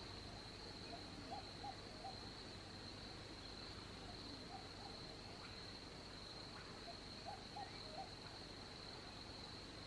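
Faint night insect chorus, a steady high-pitched chirring, with a few short groups of two or three soft calls from an animal.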